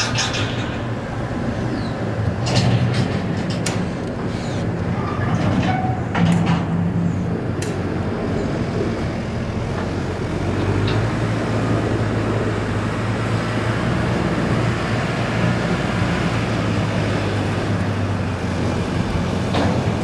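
Heavy construction machinery running with a steady low engine drone that shifts in pitch now and then, with several sharp knocks and clanks in the first eight seconds.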